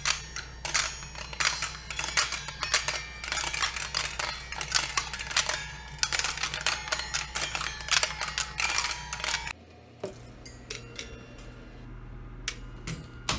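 Homemade door chime made from a child's toy piano, clinking and jingling: a dense run of quick clicks with short ringing tones, then, after a sudden cut about nine seconds in, sparser clinks with clearer ringing tones.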